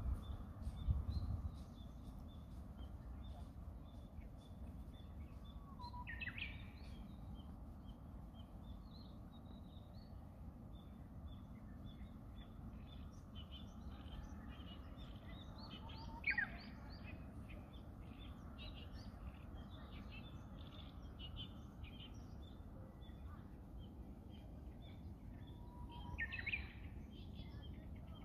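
Wild birds calling: many short, high chirps keep on throughout, and about every ten seconds a louder call sweeps down in pitch, three times in all. A faint, steady low rumble of background noise lies underneath.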